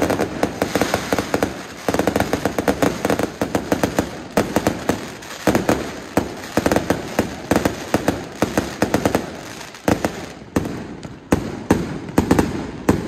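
Fireworks going off in a dense, rapid string of sharp bangs and crackles, many per second, as shells are launched and burst overhead.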